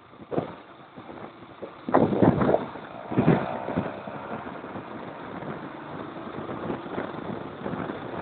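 Motorcycle engine running on the move, with wind buffeting the microphone; the sound surges loudly twice, about two and three seconds in, then settles to a steady drone.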